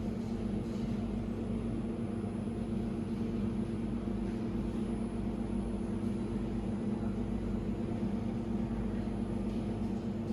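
Laser welding machine running: a steady mechanical hum with a few steady low tones.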